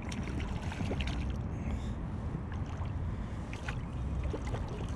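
Water lapping and small splashes around a kayak, with scattered light ticks, over a steady low rumble of wind on the microphone.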